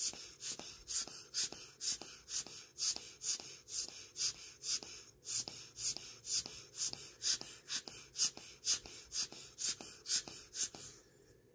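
Vintage Gruen automatic wristwatch movement ticking in a steady run of sharp, high clicks, about three a second, which stop near the end. The movement is very dirty and is being flushed with cleaning fluid, and it is running weakly, looking as if it wants to stop.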